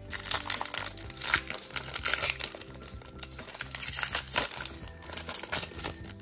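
Foil wrapper of a Pokémon trading-card booster pack crinkling as it is torn open by hand, in a dense run of crackles.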